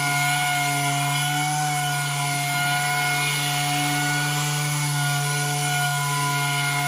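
Electric sander with Abranet mesh abrasive running steadily against a corroded alloy wheel, a constant motor whine under the hiss of sanding.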